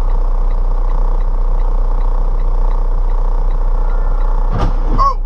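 Steady road and engine noise heard inside a car, with a strong low rumble and faint regular ticking about three times a second. Near the end comes a sharp knock, followed by a short tone that falls in pitch.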